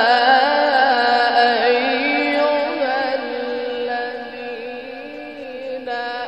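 A man's voice in melodic Quran recitation (tilawat), drawing out one long ornamented note that wavers up and down in pitch. It grows softer about two thirds of the way through, and a new phrase starts near the end.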